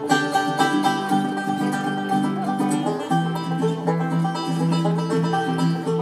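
Acoustic bluegrass string band playing an instrumental break, led by a picked five-string banjo, with no singing.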